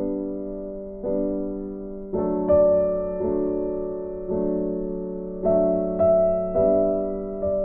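Background music: slow, soft piano chords, a new chord struck about once a second and fading away before the next.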